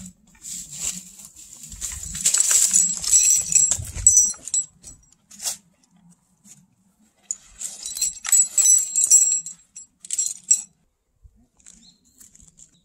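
Metal climbing hardware (carabiners and other gear clipped to an arborist's harness) jingling as the wearer moves, in two spells of a few seconds each, with a few low handling thuds in the first spell.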